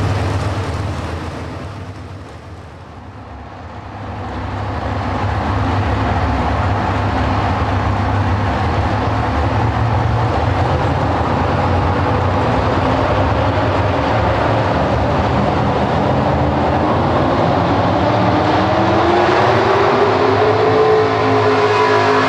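Engine of a pro stock four-wheel-drive pulling truck running loud and steady. It fades down briefly a couple of seconds in, then comes back up. Near the end its pitch climbs steadily as the revs rise.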